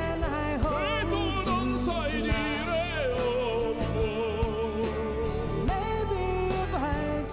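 Background music: a song with a singing voice holding long notes with a wavering vibrato over a steady instrumental accompaniment.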